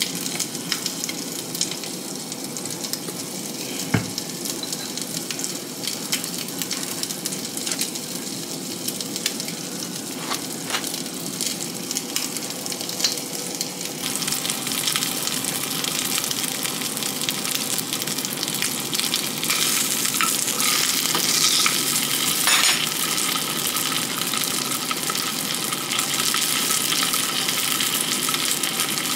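Food frying in a pan on the stove: a steady crackling sizzle that grows louder about halfway through. A single knock about four seconds in.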